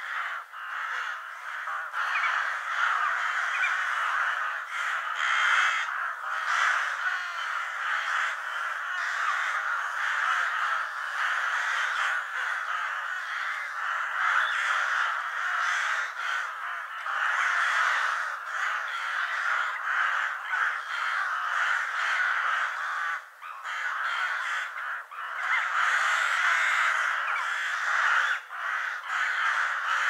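A flock of crows cawing, many calls overlapping into a continuous dense chorus.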